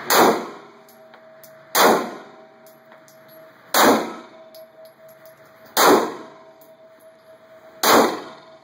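Glock 9mm pistol fired five times, slow and evenly paced at about one shot every two seconds, each sharp, loud report trailing off in a short echo off the walls of an indoor range.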